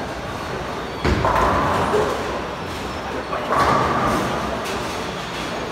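Bowling alley sounds: balls rolling down the lanes and pins being struck, with two sudden louder hits about a second in and about three and a half seconds in.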